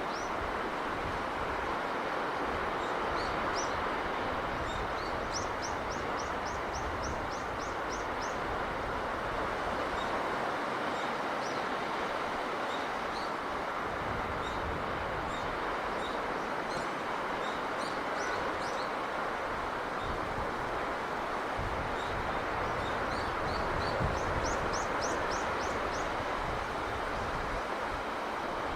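Steady seaside wash of wind and surf, with a small bird calling in quick runs of high, short chirps: once about five seconds in and again later on.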